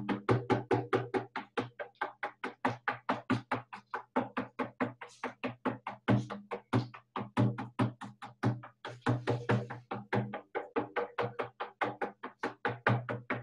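Frame drum beaten with a beater in a steady, fast, even beat of about four to five strokes a second, each stroke leaving a low boom: shamanic journey drumming.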